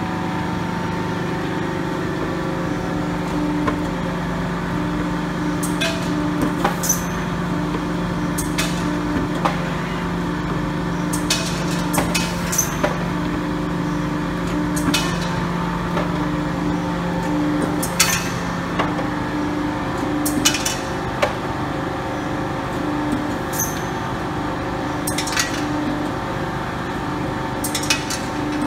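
Sunrise PM-120LT 120-ton CNC hydraulic punching machine running a punch program. A steady hydraulic hum and a short, repeated whirr of the CNC table moving the plate are broken every second or two by sharp clacks as the punch strikes through the metal plate.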